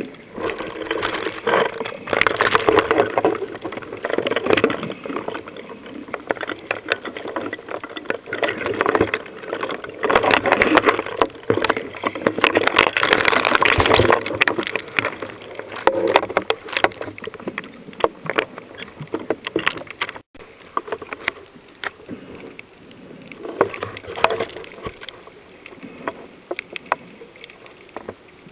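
Underwater sound through a submerged camera: water rushing and bubbling around it in loud surges, with many small clicks throughout. It grows quieter about two-thirds of the way in.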